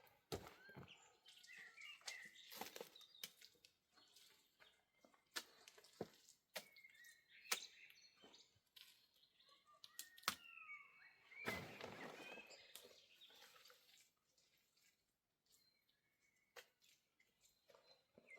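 Sparse bird chirps with scattered sharp clicks and knocks, and a brief rustle about two-thirds of the way through.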